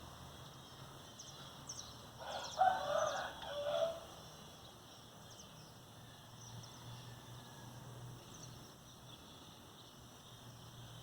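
A rooster crowing once, about two seconds in, over faint chirping birds or insects.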